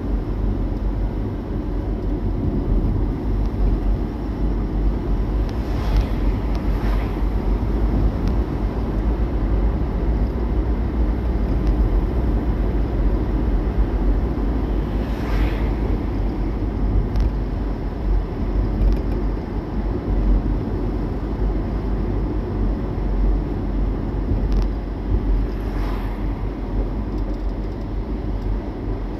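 A car driving: a steady low road-and-engine rumble, with a few faint brief ticks over it.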